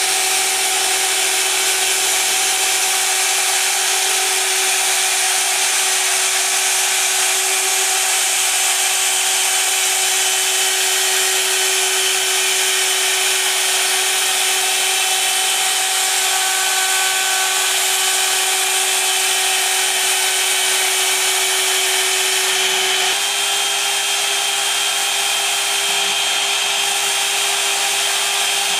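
High-frequency spindle of a CNC gantry engraving machine running with a 60° engraving cutter that cuts into a clear plastic sheet: a steady whine over a hiss, its pitch shifting slightly about three seconds in and again a few seconds before the end.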